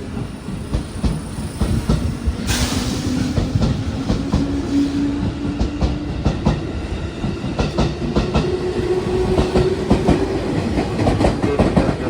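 JR West 221 series eight-car electric train pulling out and gathering speed, its wheels clacking over the rail joints while its motor hum rises slowly in pitch as it accelerates. A brief hiss about two and a half seconds in.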